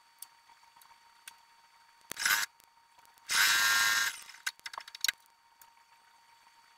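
Electric sewing machine running in two short bursts of stitching, a brief one about two seconds in and a longer one of nearly a second just after, with small handling clicks around them.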